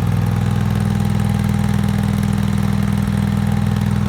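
Yardman 999 garden tractor's engine running steadily at an even speed.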